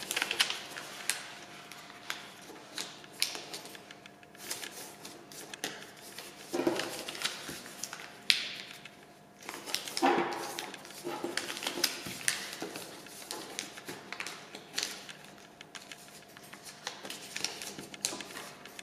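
A square sheet of paper being folded and creased by hand on a wooden tabletop: rustling and crinkling as the corners are folded in to the centre and fingers press and run along the folds, with many small clicks and taps and a few louder rustles.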